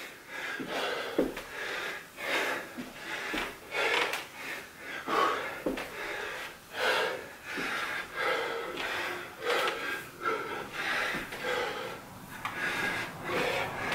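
A man breathing hard through a set of lunges, with sharp, noisy breaths about once a second, the breathing of someone out of breath from exercise. A few soft thuds of his feet stepping on carpet.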